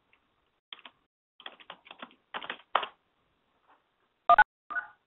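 Computer keyboard being typed on in short runs of keystrokes, entering a password. Near the end come two short electronic beeps, the first loud and the second fainter.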